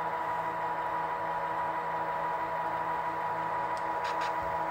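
The Atlas HO-scale SD35's Tsunami 2 sound decoder plays an EMD diesel engine at low throttle through the model's small speaker: a steady hum with an even throbbing beat. A few faint clicks come near the end.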